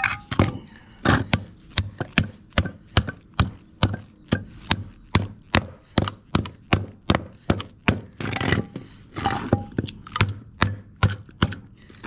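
Hammer blows on the laminated steel core of a microwave oven transformer, a steady run of sharp metallic whacks about three a second, knocking the copper winding loose from the core.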